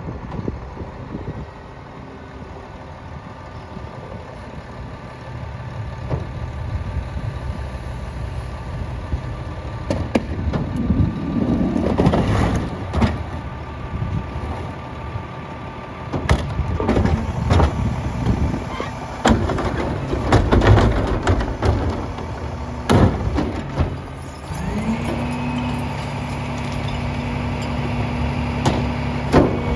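A rear-loader garbage truck's diesel engine idles while a trash cart is tipped into the hopper by hand, with bangs and thumps of the plastic cart and bags from about ten seconds in. Near the end the engine speeds up to a steady, higher drone as the Heil PowerTrak's hydraulic packer starts its cycle.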